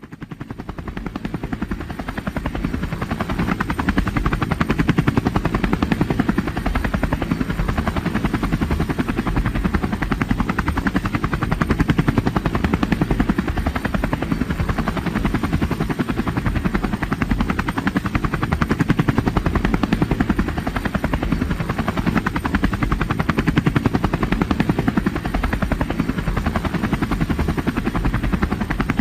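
Helicopter rotor chopping steadily with a fast, even beat and turbine noise, fading in over the first few seconds, then holding steady.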